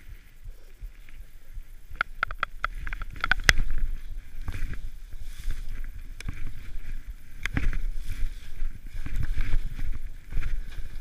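Skis swishing through deep powder snow, with low rumbling buffeting on the action camera's microphone. A quick run of sharp knocks comes about two to three and a half seconds in, and another single knock near the middle.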